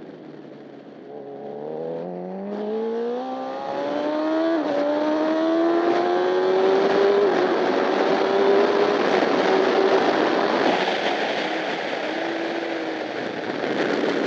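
Honda CBR1000RR superbike's inline-four engine accelerating hard through the gears, its pitch climbing and dropping sharply at each of two upshifts. In the last few seconds it settles to a lower, steadier note.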